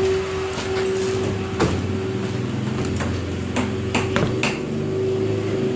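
Scattered hammer knocks, about six irregular strikes in the second half, over a steady mechanical hum on a construction site.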